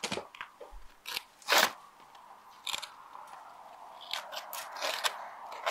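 Utility knife cutting through an asphalt shingle in a series of short scraping strokes, the strongest about a second and a half in. The roofer is trimming the shingle's top corner along the valley line so that water cannot run along it to a nail.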